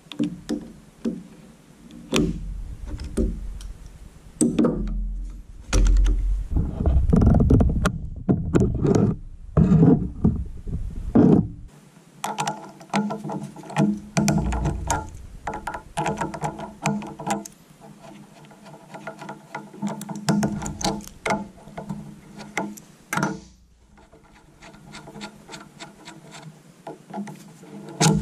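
Hand-tool work on a chainsaw's carburetor: repeated ratchet clicks and clattering metal parts as the carburetor is unbolted and pulled off. A steady hum sounds under the clicks for part of the time.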